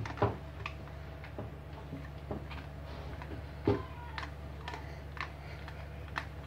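Metal spoon pressing and tapping damp biscuit crumbs down into a small clear plastic container, making irregular light clicks and ticks, with one louder knock a little past the middle. A steady low hum runs underneath.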